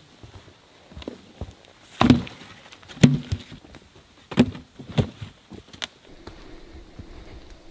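Cut logs being dropped and stacked onto a log pile: a series of heavy wooden thuds and knocks, the loudest about two and three seconds in, with lighter knocks until about six seconds in.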